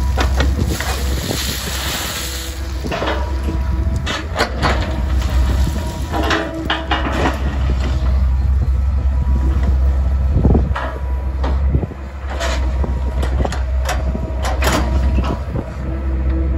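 CAT 307B midi excavator working a gravel pile: its diesel engine runs steadily under load while the hydraulics swing the boom and bucket, with repeated sharp clanks and rattles of stone as the bucket digs and dumps.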